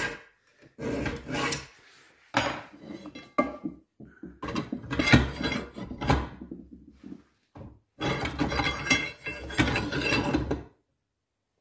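Irregular scraping and rubbing strokes of hand work, short strokes first and then a longer run, stopping shortly before the end.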